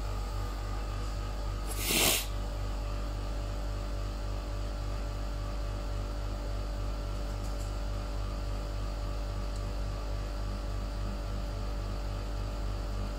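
A steady low electrical-sounding hum with a faint regular pulsing, and one short noisy burst about two seconds in.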